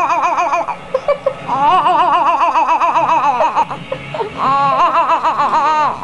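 A baby holds three long vocal 'ahh' sounds whose pitch warbles rapidly up and down as an adult's hands pat on his chest, shaking the voice into a wobbling tremolo, with short breaks between them.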